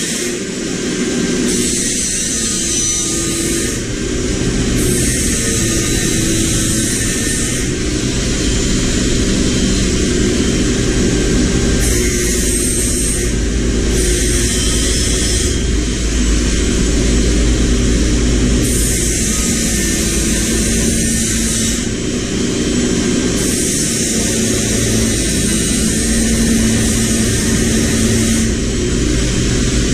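A motor-driven machine running steadily with a low hum, while a loud hiss switches on and off every few seconds.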